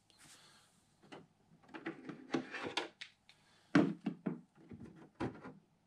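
Plastic spring clamps being released from an RC truck body and set down on a wooden workbench: a run of separate clicks and clacks, the loudest a little under four seconds in.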